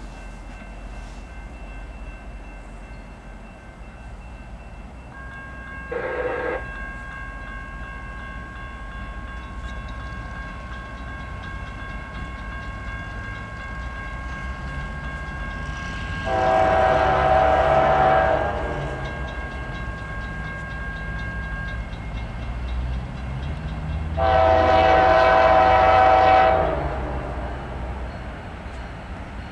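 Approaching diesel locomotive sounding its multi-note air horn for a grade crossing: two long blasts, the second starting about eight seconds after the first, with a short blast beginning at the very end. A brief, fainter blast comes about six seconds in, and a low engine rumble grows as the train nears.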